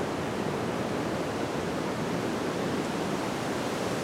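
Steady, even rushing outdoor background noise with no distinct events, heard through a hand-held clip-on microphone.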